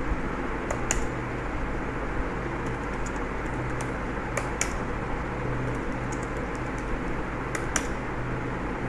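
Computer keyboard keys tapped in scattered, irregular strokes while commands are typed, over a steady background hum and hiss.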